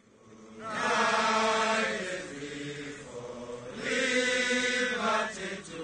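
A company of Ugandan soldiers singing together as one group. The singing swells up about a second in, eases off, and swells again past the middle.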